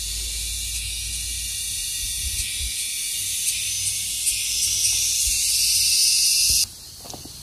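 Loud insect chorus: a shrill, steady high buzz that cuts off suddenly near the end, followed by a few soft footsteps on gravel.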